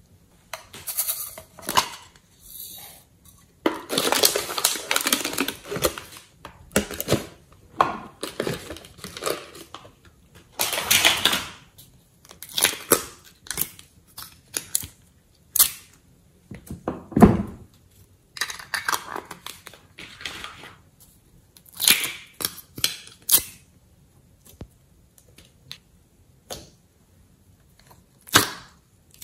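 Small plastic containers of slime and clay being handled and opened by hand: irregular clicks, crackles and crinkling of plastic, in separate bursts of a second or two.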